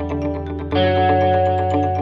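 Background music: quick repeated notes over held chords, with a new chord coming in under a second in.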